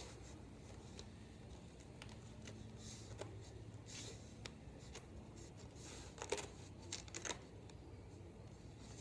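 Faint handling of a wax foundation sheet and a wooden beehive frame as the sheet is slid into the slit in the frame's bottom bar: light clicks and rustles, with a few sharper taps in two small clusters in the second half.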